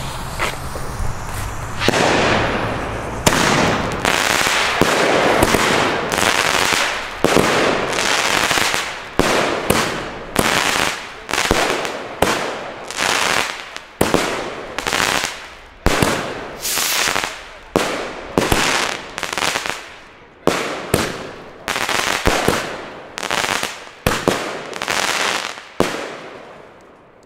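Pyroland Hexenblitz consumer firework battery (cake): the lit fuse fizzes, then the tubes fire shot after shot at about one a second. Each launch is followed by crackling from the popping-flower and strobe stars. The shots die away near the end.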